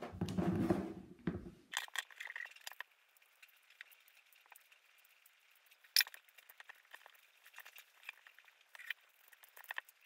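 Plastic Square-1 puzzle being turned by hand: light clicks and clatter of its layers and pieces, with one sharp click about six seconds in. A louder low rumbling noise fills the first second and a half.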